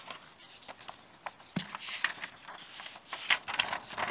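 Paper instruction sheets and a cardboard box being handled and unfolded: scattered rustles, light taps and clicks, busiest about two and three seconds in.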